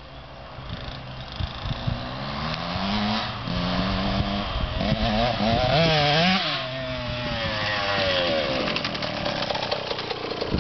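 KTM 125 EXC two-stroke single-cylinder engine revving hard, its pitch climbing and dropping again and again through gear changes. It grows steadily louder over the first half and stays loud.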